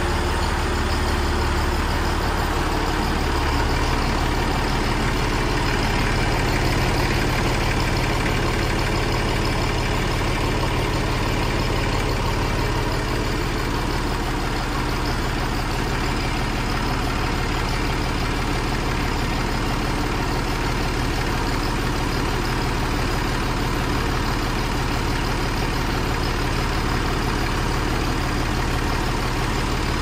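An engine idling steadily with a low, even hum.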